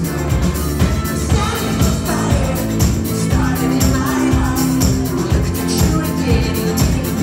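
Live rock band playing: vocals over a steady drum beat, electric guitars and keyboards, loud in a small club.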